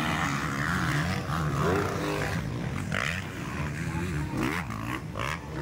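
Several motocross dirt bike engines racing on a dirt track, their pitch rising and falling as the riders work the throttle.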